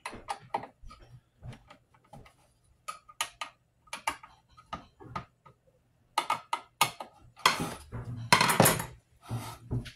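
Small metal clicks and taps of a screwdriver and parts being handled on an open metal power-supply case, with a louder scraping rattle from about seven and a half to nine seconds in.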